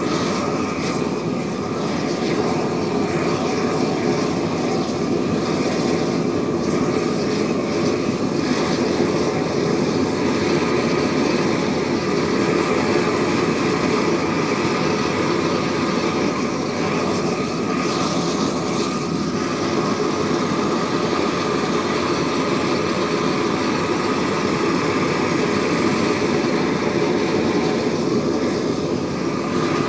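Propane weed-burner torch burning steadily: a continuous rush of gas flame from the wand, unbroken and at an even level.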